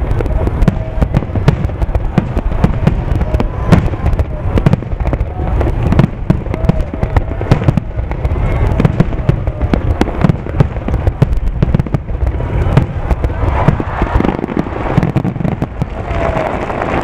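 Fireworks display: aerial shells bursting one after another in quick succession, a dense run of sharp booms with hardly a gap between them.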